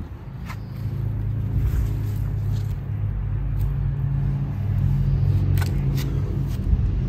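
An engine running with a steady low hum that swells in over the first second and holds even. A few light clicks sit over it.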